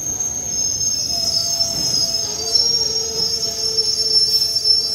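Steel wheels of passenger coaches squealing against the rails as the train rolls along the platform: high-pitched squeals that waver in pitch, with a lower squeal joining about a second in, over the rumble of the moving coaches.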